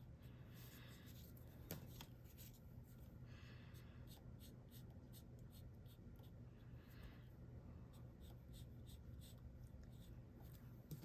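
Faint strokes of a blending marker colouring on white paper, a few short scratchy passes, with a single light tap about two seconds in.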